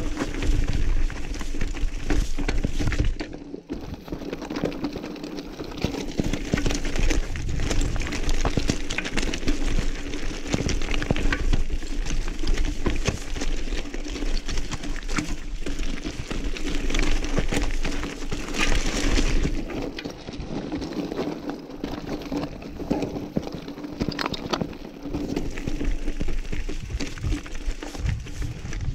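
Giant Trance mountain bike rolling over a loose rocky trail: a continuous clatter of tyres on stones and rattling from the bike, with a steady low hum underneath.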